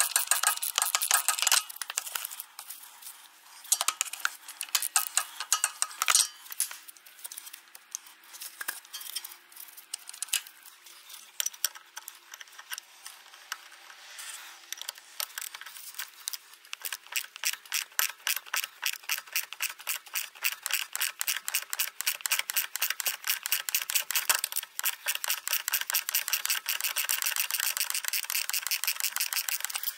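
Hand ratchet wrench clicking rapidly as a fastener is turned: uneven spells of clicks in the first half, then a steady run of about ten clicks a second through the second half.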